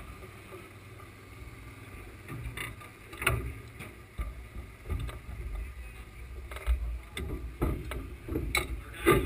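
Scattered knocks and clicks of hands and tools working on a nostalgia top fuel dragster's engine, carried through the car's frame to the camera mounted on it. The knocks come more often after about three seconds in, over a low rumble.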